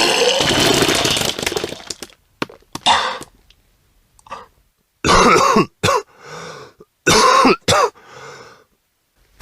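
A person retching and vomiting: a long gagging heave with a gush that fades over about two seconds, a few short gags, then two pairs of sharp retching heaves about five and seven seconds in.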